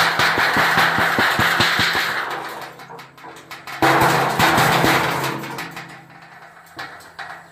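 Corrugated tin sheet on a pole rattled and banged in rapid strokes, a bird-scaring clatter, in two loud bursts: the first dies away about two and a half seconds in, the second starts about four seconds in.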